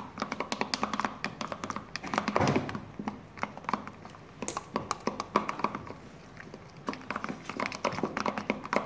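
A utensil stirring runny glue slime fast in a plastic bowl: a quick, uneven run of clicking taps against the bowl, with a louder cluster about two and a half seconds in.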